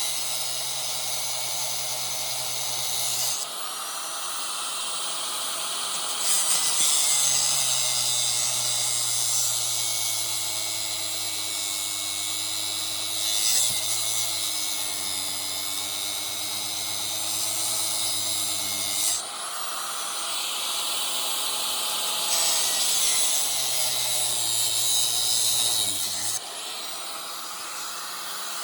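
Angle grinder cutting through metal parts of a window air-conditioning unit, a loud, steady, hissing grind over the motor's hum. The cuts come in several passes: the hum stops and restarts a few times, and its pitch dips as the blade bites.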